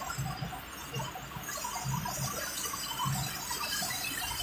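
Heavy rain on a moving car, heard from inside the cabin: a steady hiss of rain and tyre spray on the wet road, with scattered irregular knocks.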